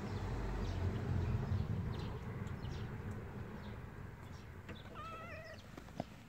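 Domestic cat purring while being stroked, strongest over the first two seconds and then fading away. About five seconds in comes a short wavering call, and a sharp knock follows just before the end as a hand touches the phone.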